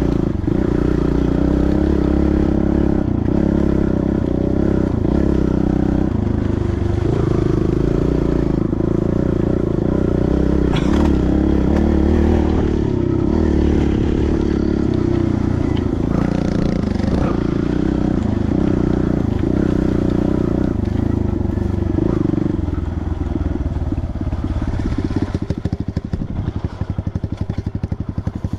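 Dirt bike engine running steadily under way, then settling about 23 seconds in to a slow, evenly pulsing idle.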